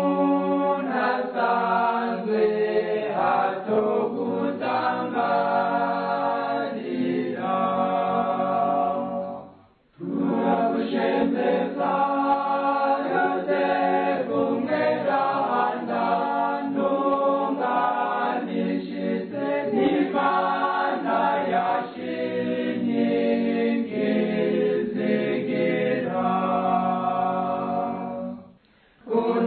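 A choir singing a Kirundi Catholic hymn to Saint Joseph, with two short breaks between phrases, about ten seconds in and near the end.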